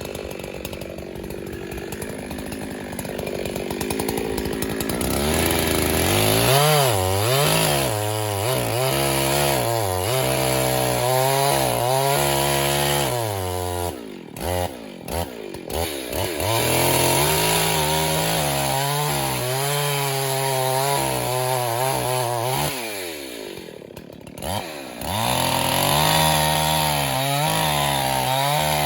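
Two-stroke chainsaw running, revving up about five seconds in and cutting, its engine note sagging and rising under load. It drops back briefly twice, about halfway and about three-quarters through, then revs up again.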